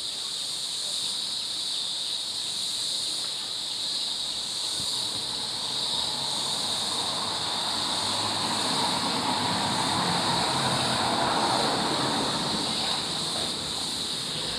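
Forest insects buzzing steadily in a high-pitched, unbroken chorus. A low rumble swells and fades underneath it, loudest about 11 seconds in.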